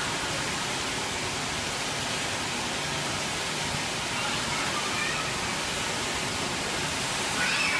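Steady rushing background noise of a large indoor hall, with faint distant voices about five seconds in and again near the end.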